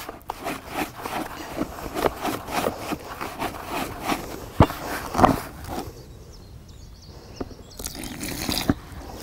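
A hand stirring and scraping dry fishing groundbait in a plastic bucket, a rough gritty scratching that stops about six seconds in. Near the end, water poured in from a jug splashes briefly.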